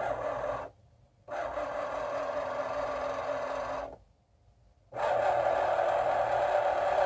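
Excalibur Phantom Force chess computer's under-board motorised magnet carriage running as it drags a captured piece off the board. The motor runs in three spells, stopping twice briefly, and the last spell is the loudest.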